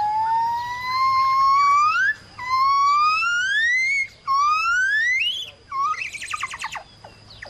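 An animal giving a series of three long, rising whistled calls, each climbing higher than the last. Near the end they break into a quick run of short falling notes.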